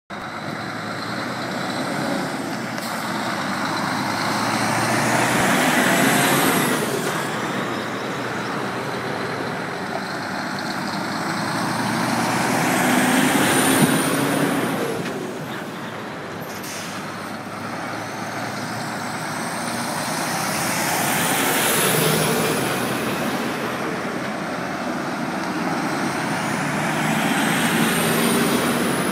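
Several DAF XF articulated lorries with curtainsider trailers pulling out one after another and driving past, their diesel engines swelling and fading with each pass, about four times. A high rising whine comes as each one accelerates.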